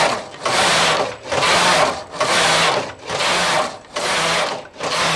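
Domestic flatbed knitting machine, its carriage pushed by hand back and forth across the needle bed: a whirring rush with each pass, about one pass a second, with short breaks as it reverses.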